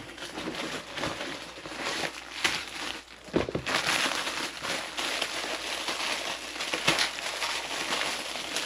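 Packaging of a door screen kit being opened by hand: plastic and cardboard crinkling and rustling, with a few sharper crackles.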